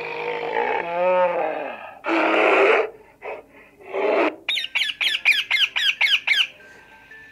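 A children's talking learning pen plays recorded animal sounds from its small speaker as pictures are touched: first a bear growl, then from about halfway a run of quick, high bird chirps, about four a second.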